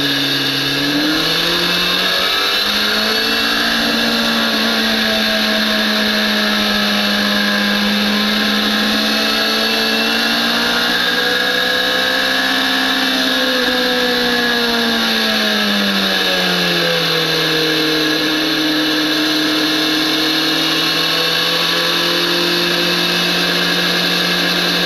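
BMW S1000RR sport bike's inline-four engine under way on track. The engine note climbs over the first few seconds and holds high. It falls away from a little past the middle, as the bike slows, then settles steady at a lower pitch. A constant rush of wind noise sits under it.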